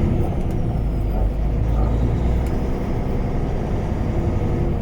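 Steady low rumble of a car being driven, engine and road noise heard from inside the vehicle.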